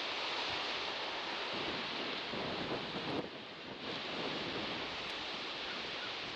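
Ocean surf washing in a steady hiss, with a brief lull about three seconds in.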